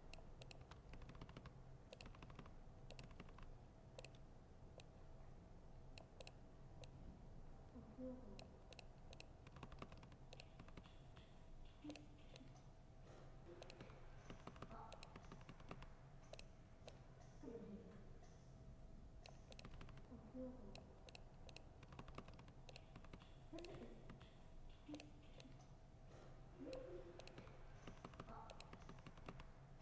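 Faint typing on a laptop keyboard: soft, irregular key clicks over a steady low room hum, with faint voices in the background now and then.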